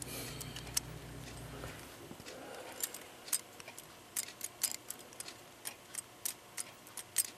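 Light, irregular metallic clicks, a few a second from about three seconds in: the brass wheels of an old cast-brass cuckoo clock movement being moved by hand and knocking about in their worn pivot holes, which need rebushing. A low hum stops about two seconds in.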